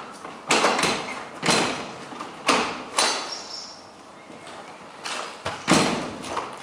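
Footsteps and scuffing on rubble as someone climbs in through a window: about six short, loud crunching scrapes, each fading away within half a second, in two clusters with a quieter gap in the middle.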